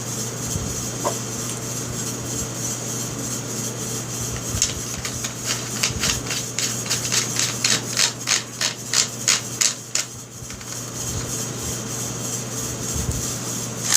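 Metal parts of a Stevens 320 pump shotgun being handled and fitted back together: a run of light metallic clicks, about three a second, lasting several seconds midway through, over a steady low hum.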